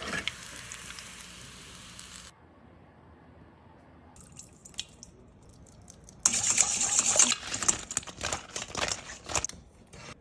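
Chicken pieces deep-frying in a saucepan of hot oil, a steady sizzle for about two seconds. About six seconds in comes a louder, crackly stretch of many sharp clicks lasting some three seconds.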